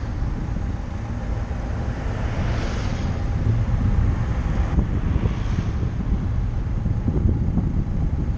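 Car driving along a city street: low road and engine rumble with wind buffeting the microphone. A hiss swells briefly about two and a half seconds in and again about five and a half seconds in.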